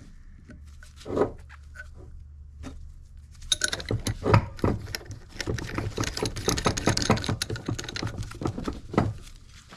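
Brass pipe fittings clicking and rattling in gloved hands as a PEX adapter's union nut is fitted and hand-threaded onto a brass water pressure reducing valve. A few separate clicks at first, then a busy run of small metallic clicks from about three and a half seconds in until near the end, over a low steady hum.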